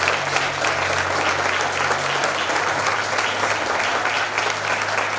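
Congregation applauding: many hands clapping steadily throughout.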